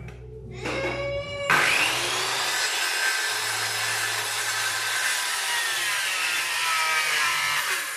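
Modern M-2600L 700-watt circular saw cutting through wood. The motor winds up briefly, the blade bites into the board about a second and a half in, and a loud, steady cutting noise follows, with the motor pitch sagging slightly under load until the cut ends just before the close.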